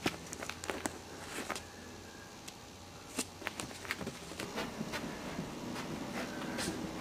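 Light, irregular clicks and taps from small puppies moving about, their paws and claws pattering.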